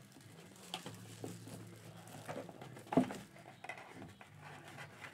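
Hands handling a cardboard trading-card box and its plastic wrap: light rustling and scraping, with one sharp knock about three seconds in.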